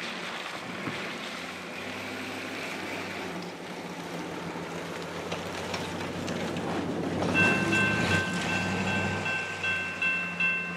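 Diesel locomotive approaching, its engine rumble and rail noise growing steadily louder. About seven seconds in, a ringing warning signal of several steady high tones starts over it and begins to pulse rhythmically near the end.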